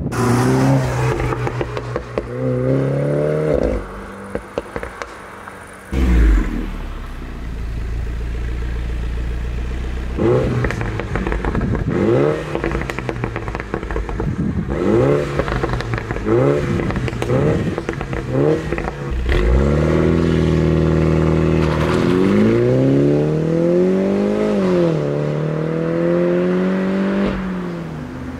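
Mini John Cooper Works' turbocharged four-cylinder through a JCW Pro sports exhaust, accelerating hard in several passes: the revs climb and drop back at each upshift, with sharp pops and crackles from the exhaust between pulls.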